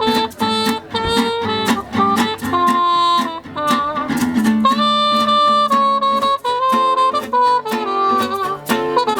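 Instrumental music: plucked guitar under a melody of held notes.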